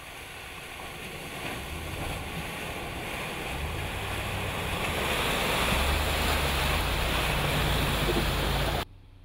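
Ram 2500 pickup's 6.4-litre HEMI V8 rumbling as the truck ploughs through a muddy, flooded track, its tyres throwing up a loud, continuous rush and splash of water. The splashing grows steadily louder as the truck comes close and passes, then cuts off abruptly near the end.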